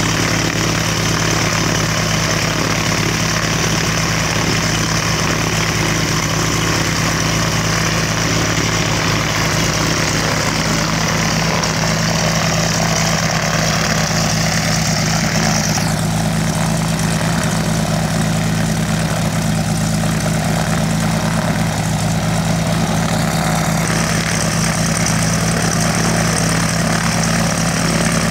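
Single-engine agricultural airplane's piston engine and propeller idling steadily on the ground.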